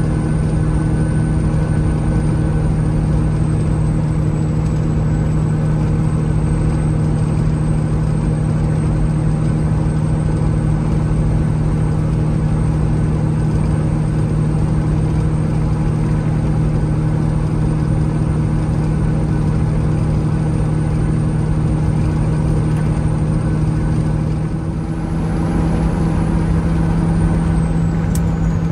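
Peterbilt 379 semi truck cruising at highway speed, heard from inside the cab, pulling a loaded hopper trailer: a steady diesel engine drone over road rumble. About 25 seconds in the level dips briefly and the drone carries on at a slightly different pitch.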